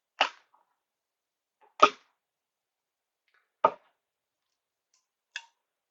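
Four short, sharp clicks about two seconds apart, from small hardware being handled and knocked against the mechanism during assembly.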